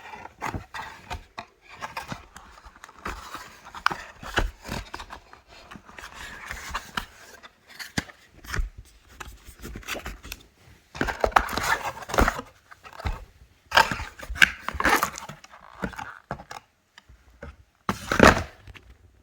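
Box contents and packaging being handled and unpacked: irregular scrapes, rustles and knocks, with a few louder bursts of rustling in the second half.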